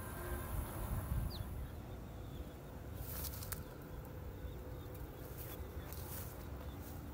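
Outdoor ambience: a low rumble of wind on the microphone, with a short bird chirp about a second in. A high steady hiss stops about two seconds in, and a few sharp clicks or rustles come in the second half.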